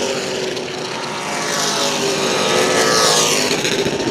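Pack of Pro Late Model stock cars' V8 engines running hard as the cars race side by side. The sound swells and fades about three seconds in as cars pass.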